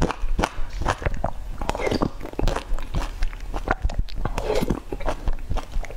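Close-miked eating sounds: soup sipped from a spoon and chewed, with many short sharp clicks throughout.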